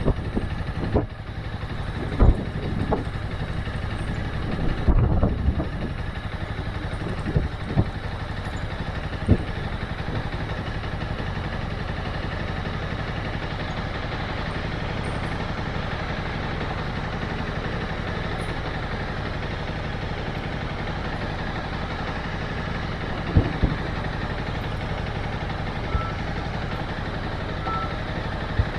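Motorcycle engine running at steady low revs, with several short knocks and thumps in the first few seconds and a few single knocks later on.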